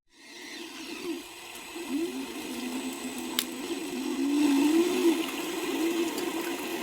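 Small electric motor of a radio-controlled model machine whining, its pitch rising and falling as the throttle changes, with a single sharp click about halfway through.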